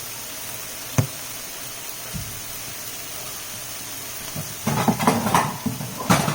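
Kitchenware clatter as a broccoli pan is handled: a single sharp knock about a second in, then a run of clattering knocks and rattles near the end, over a steady low hiss.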